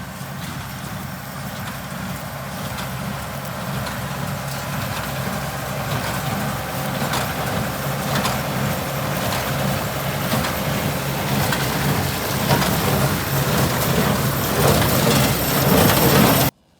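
A Ranger utility vehicle's engine running steadily while it pulls a rake through corn stalks, growing louder throughout, with frequent clicks and crackles over it. It cuts off suddenly at the very end.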